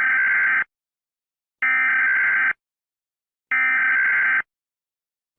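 Emergency Alert System SAME header: three bursts of high digital data tones, each just under a second long and about a second apart, the coded signal that opens an emergency alert.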